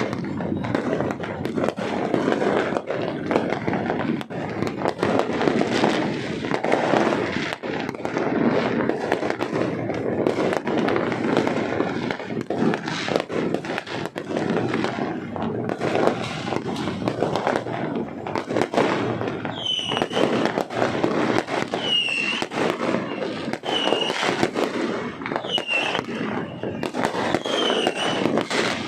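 New Year's fireworks going off without a break: a dense rattle of bangs and crackles. About two-thirds of the way in, short falling whistles begin and repeat about every two seconds over the bangs.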